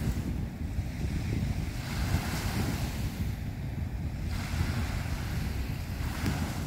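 Small waves washing onto a sandy beach in swells, with wind rumbling on the microphone.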